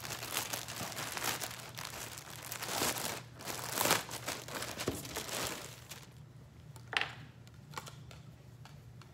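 Packaging crinkling and rustling as clothing is handled, dense for about six seconds, then dying down to a few light ticks and one sharp click about seven seconds in.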